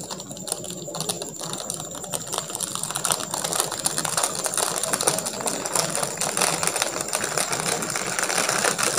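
Clear plastic transfer sheet crackling as it is peeled slowly off ironed-on hot-fix rhinestones: a dense run of fine crinkly ticks that grows louder as the peel goes on.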